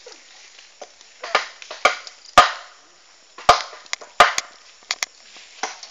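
Irregular sharp blows on wood, about eight of them, each a crisp chop or knock with a short rasping tail, spaced a half second to a second apart.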